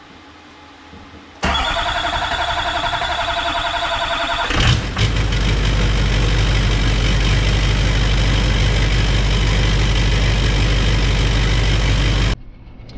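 Chevrolet Duramax 6.6-litre V8 turbodiesel started after its head gasket replacement: the starter cranks it with a pulsing whine for about three seconds, the engine catches about four and a half seconds in and settles into a steady idle, and the sound cuts off near the end.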